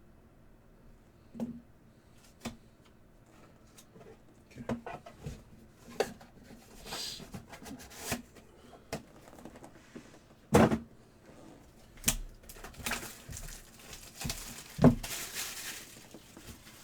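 Trading cards and box packaging being handled on a table: scattered taps, clicks and knocks, with a few short rustles of packaging or card stock.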